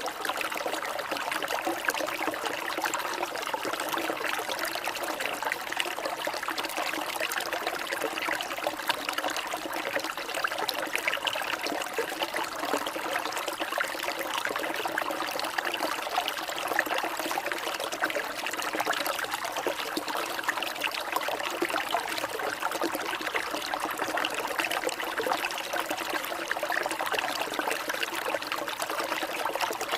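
Water trickling and splashing steadily and without a break, a dense patter of small drips and bubbles.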